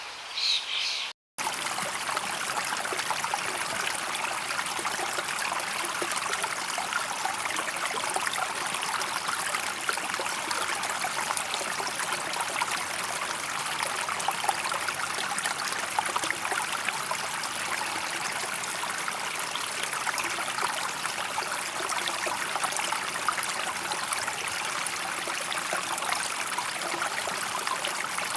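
Steady babbling of a running stream, an even rush of water dense with fine splashes. In the first second birds sing; then the sound cuts out for a moment and the water begins.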